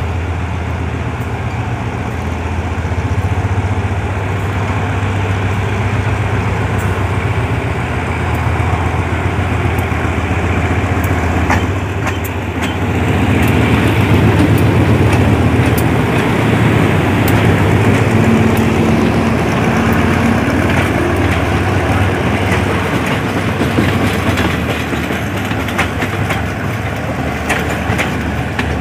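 GE GEA-class diesel-electric locomotive No. 4532 pulling a passenger train away from the station: its diesel engine runs with a steady low drone that grows loudest as the locomotive passes close, about halfway through. Near the end the coaches roll past with a run of wheel clacks over the rail joints.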